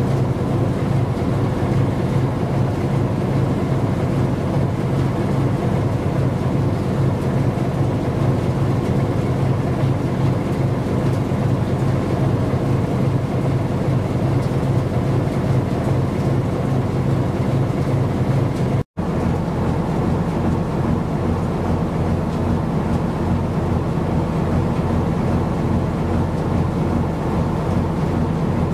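Steady low engine drone of a ship under way. It breaks off for an instant about two-thirds through and then goes on a little lower in pitch.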